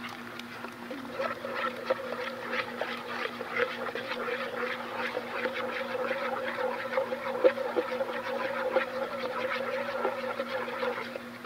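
Metal spoon scraping and clicking quickly and irregularly against the inside of a metal camp cup, stirring lumpy cake batter smooth. A steady low hum runs underneath.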